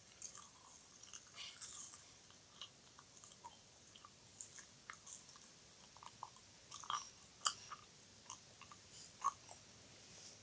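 ASMR wet mouth sounds: soft, irregular clicks and smacks of lips and tongue, with a few louder ones about seven and nine seconds in.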